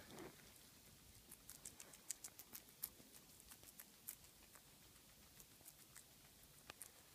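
Guinea pig chewing a piece of crisp green vegetable: faint, quick crunching clicks, thickest in the first half and thinning out later.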